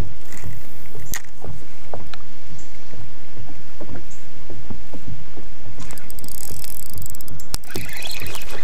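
Water slapping against a small fishing boat's hull with a steady rush of wind on the microphone, over scattered clicks and taps from handling a spinning rod and reel. A quicker run of clicks comes in near the end.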